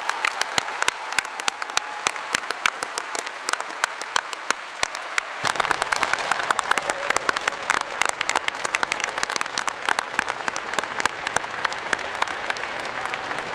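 Applause: many hands clapping at once in a dense, uneven patter of sharp claps. About five and a half seconds in it changes to a fuller, denser applause with more low rumble underneath, as from a larger audience.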